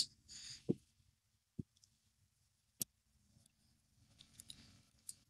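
Faint handling noises from a lightsaber hilt turned in the hands: a few sharp, separate clicks in the first three seconds and small scattered ticks and rustles near the end.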